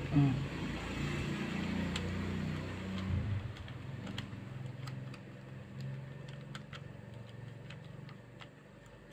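Light plastic clicks and ticks, scattered and irregular, as the toy RC car's front steering housing is pressed and fitted back together by hand, over a low engine-like hum that fades after the first few seconds.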